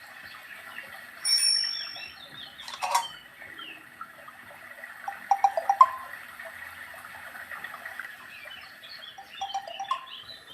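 Ringtone of a Samsung GT-C6712 mobile phone playing through its small speaker: bird-like chirps and chime tones, with a bright held high note about a second in, a sharp click near three seconds, a quick run of short notes around the middle and more chirping near the end.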